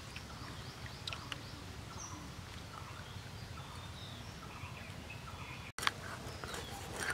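Outdoor background with faint birds chirping; just before six seconds in the sound cuts out for a moment, then a run of sharp clicks and scrapes as a tilapia's scales are rubbed off against the edge of a boti blade.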